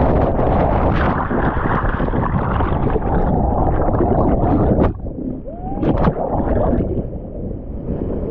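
Loud rushing whitewater of a river rapid being paddled through by kayak. About five seconds in the rush drops abruptly to a quieter level, and a brief gliding tone follows.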